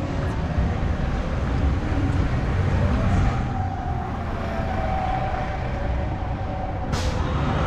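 Street traffic: vehicles passing with a steady low rumble and a faint engine whine. A short, sharp hiss comes about seven seconds in.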